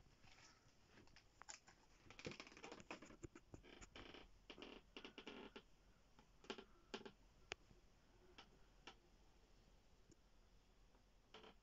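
Near silence: room tone with faint scattered clicks and rustles, most of them in the first half.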